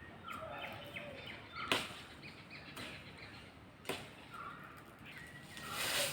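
Two sharp chopping strikes on wood, about two seconds apart, from cutting a coconut tree, with faint chirps in between.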